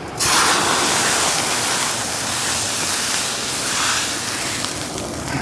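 Water sizzling and steaming off a hot flat-top griddle in a steady hiss, while a towel wipes the wet plate to clean off debris.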